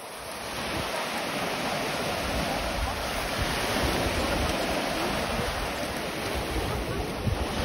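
Small waves breaking and washing up a gravel beach: a steady rushing hiss of surf that grows louder within the first second, over a low rumble.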